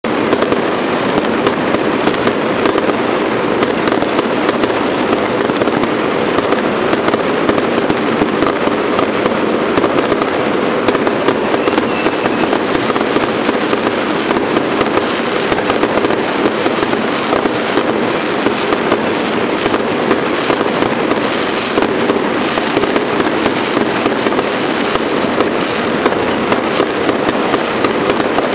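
Aerial fireworks going off in a dense, unbroken barrage: many bangs and crackles in quick succession, without a pause.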